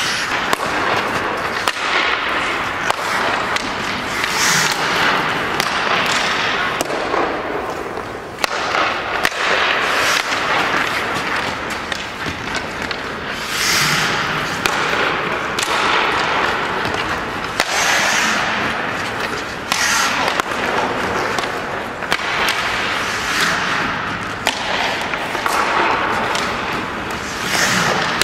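Hockey skate blades carving and scraping on rink ice in repeated hissing sweeps every few seconds, with scattered sharp clicks of a hockey stick striking the puck.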